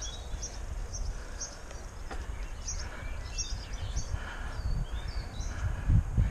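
Small birds chirping and twittering in short calls over a steady low rumble of wind and road noise from a moving bicycle. The rumble grows stronger near the end.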